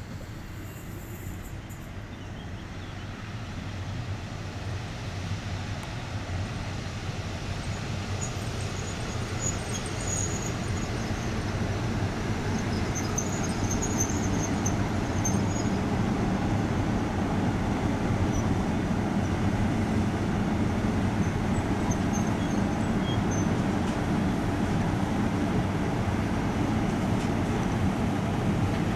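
EP07 electric locomotive running slowly at close range: a steady mechanical hum that grows louder as it draws near over the first fifteen seconds, then holds steady. Faint high wheel squeals come and go between about nine and sixteen seconds in.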